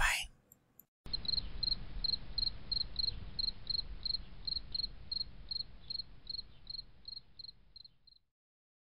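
Insect chirping: even, high-pitched chirps nearly four times a second over a low rumble, starting about a second in and fading out near the end.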